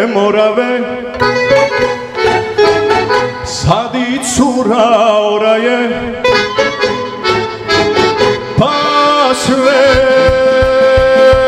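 Live Serbian folk band music from violins, bass guitar and drum kit, with an ornamented, wavering melodic lead; a steady drum beat comes in about ten seconds in.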